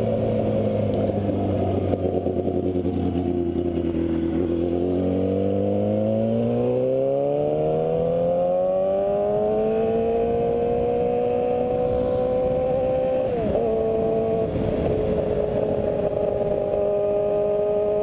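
Yamaha YZF-R6's inline-four engine under way, its pitch rising smoothly as the bike accelerates for several seconds, then holding steady at cruise. About two-thirds through, the pitch dips briefly and settles a little lower.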